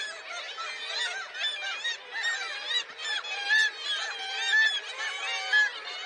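A colony of black-legged kittiwakes calling: many overlapping calls that rise and fall in pitch, with a few louder calls standing out.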